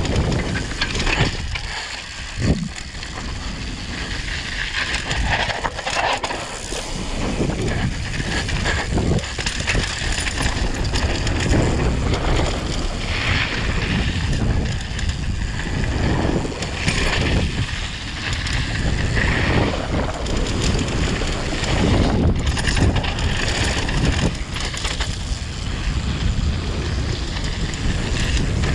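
Wind buffeting the microphone of a bike-mounted or helmet camera on a downhill mountain bike descent, over the tyres crunching on dirt and gravel and the bike rattling over rough ground, with a sharp knock about two and a half seconds in.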